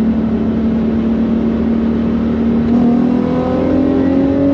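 Car engine and exhaust pulling under load, holding a steady pitch and then climbing slowly in pitch for the last couple of seconds as the car accelerates.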